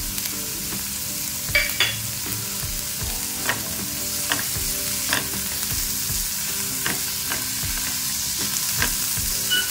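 Chopped onion and capsicum frying in oil and butter in a pan, sizzling steadily, while a spatula stirs them, scraping and knocking against the pan now and then.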